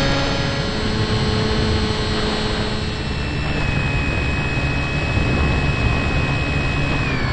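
Model aircraft motor running in flight, heard from an onboard camera, with wind rushing over the microphone. The motor's pitch steps up slightly about three seconds in and drops near the end.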